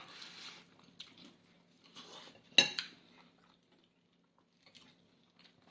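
Small clinks and rustles of food containers and utensils handled during a meal, with one sharp clink about two and a half seconds in.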